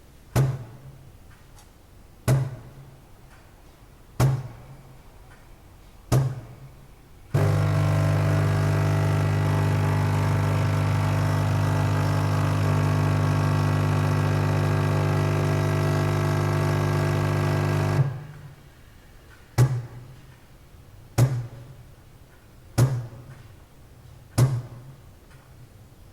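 Automatic coffee machine working through a cycle: four sharp thunks about two seconds apart, then a loud, steady motor hum that starts suddenly about seven seconds in and cuts off about ten seconds later, followed by four more thunks about a second and a half apart.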